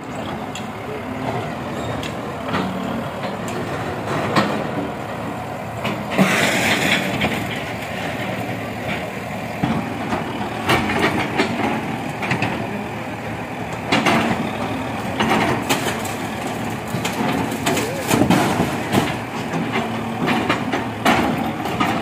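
Backhoe loader diesel engines running as their arms break down a building's walls, with repeated sharp cracks of breaking masonry and a longer crash of falling debris about six seconds in. People talk over the machinery.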